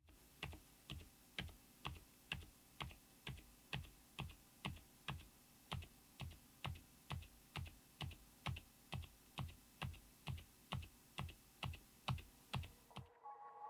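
Keys on a Lofree Flow84 low-profile mechanical keyboard pressed one after another at an even pace, about two and a half strokes a second. Each stroke is a soft low thud with a faint click on top, and the strokes stop near the end.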